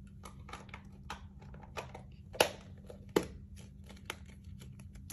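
Foil and plastic packaging of a blind-box toy being handled and worked open: scattered light crinkles and clicks, with two sharper clicks about two and a half and three seconds in.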